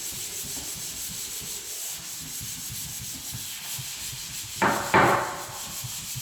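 Hand sanding of dried drywall joint compound with sandpaper: a steady, rapid scratching, with two louder, harsher strokes about three-quarters of the way through.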